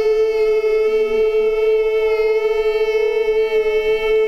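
A group of children's voices holding one high note together, very steady in pitch, with a quieter lower voice sliding in and out beneath it.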